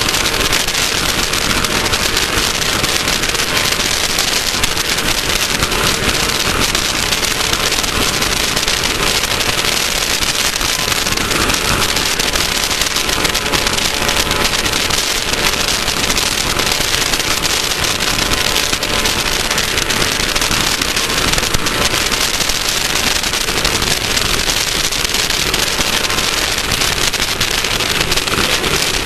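Class 1600 off-road race car driving flat out on dirt: its air-cooled Volkswagen engine running at a steady pitch under a constant loud rush of wind, tyre and dirt noise and crackling rattle.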